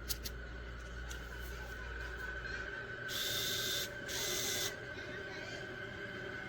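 Small electric screwdriver motor whirring in two short bursts about three and four seconds in, after a couple of sharp clicks.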